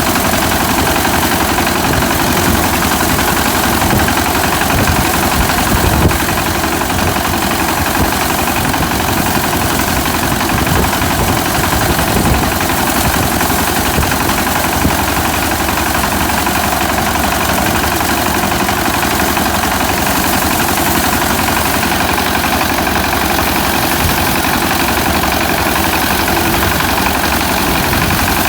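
Engine of a rice-harvesting machine running steadily at a constant speed.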